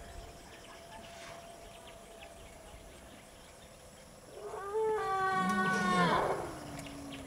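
An Asian elephant trumpeting: one loud call about two seconds long, starting a little past four seconds in, that rises briefly, holds its pitch, then slides down into a lower, fading note.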